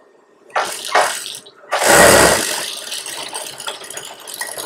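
Industrial lockstitch sewing machine stitching cloth: short bursts starting about half a second in, then a longer, louder run about two seconds in that settles into a steadier machine hum.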